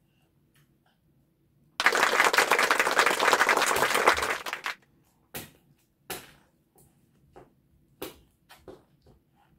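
Applause sound effect, a dense burst of clapping lasting about three seconds from about two seconds in. After it, a string of separate light taps as a baby pats her hands on a plastic high-chair tray.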